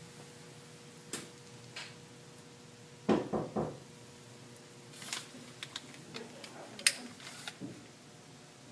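Quiet room tone with a faint steady hum, broken by scattered light clicks and, about three seconds in, a short cluster of three or four dull knocks.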